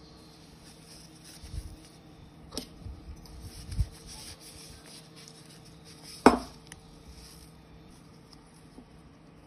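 Handling of a titanium folding spork and its nylon mesh drawstring bag: fabric rustling as the spork is slid into the bag, a few dull knocks, and one sharp clack a little over six seconds in, the loudest sound.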